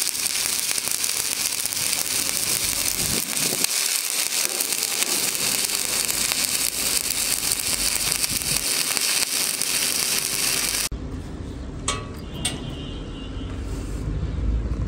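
Stick welding arc crackling and hissing steadily as the electrode runs a horizontal bead, cutting off abruptly about eleven seconds in. After that, a low rumble with a couple of sharp clicks.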